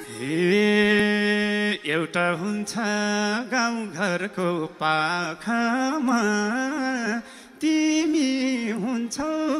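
A man singing a Nepali dohori folk verse into a microphone, with no instruments behind him. He holds one long note at first, then sings melodic phrases with wavering ornaments, pausing briefly about seven seconds in.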